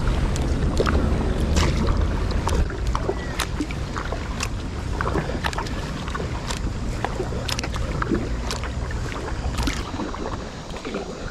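Kayak paddle strokes: the blades dip and splash, with scattered sharp drips and ticks of water, over a low rumble that eases after the first few seconds.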